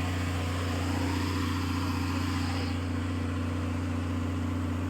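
An engine idling steadily with an even low hum.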